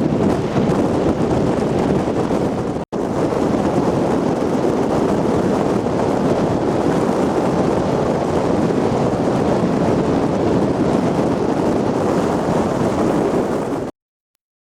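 Strong typhoon wind buffeting the microphone over the noise of heavy surf, steady and loud. It drops out for an instant about three seconds in and cuts off abruptly to silence near the end.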